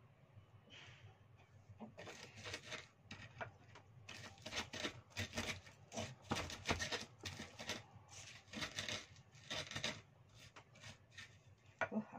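A pestle (ulekan) crushing and grinding hard spices (coriander seeds, peppercorns, candlenuts, sliced ginger and turmeric) in a flat cobek mortar, in quick repeated scraping, knocking strokes that start about two seconds in and run to about ten seconds.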